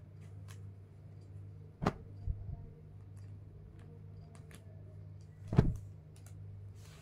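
A steady low hum with two sharp thumps, one about two seconds in and a louder one just before six seconds, and faint ticks between.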